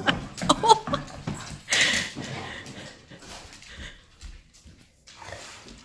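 Black and tan coonhound playing wildly: scuffling and thumps with brief whines, busiest in the first two seconds with one loud burst near two seconds in, then quieter rustling.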